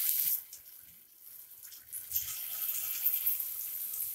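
Hot oil sizzling in a frying pan as masala-coated steamed egg pieces are laid in to fry. The sizzle fades about half a second in and starts up again about two seconds in, as a second piece goes into the oil.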